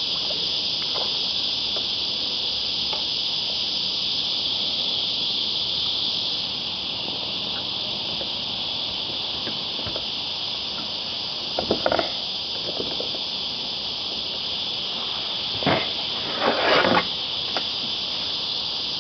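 Steady high-pitched buzzing of a cicada chorus, with a few short louder noises near the middle and toward the end.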